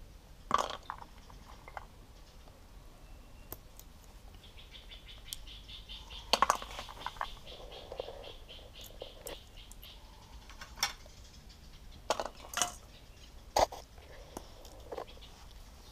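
Scattered sharp knocks and clacks of a wooden pestle and fruit against a clay mortar, about half a dozen, irregular rather than a steady pounding. From about four to nine seconds in, a fast, high chirring trill sounds in the background.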